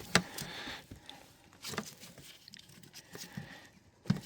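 Hands handling a small plastic automotive relay and fuse-box parts: a sharp click just after the start, then faint scratching and light clicks, and another click near the end.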